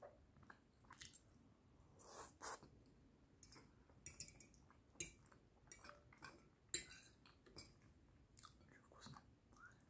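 Quiet close-up chewing of a mouthful of baked potato: a string of soft, irregular mouth smacks and wet clicks.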